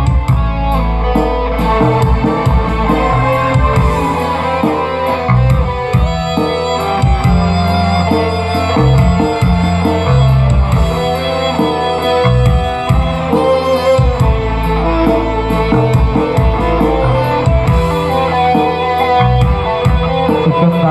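Loud music from a large street sound system: guitar over heavy bass and a steady drum beat.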